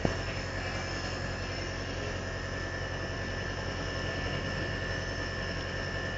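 Nebulizer compressor running, a steady low hum with an even hiss of air.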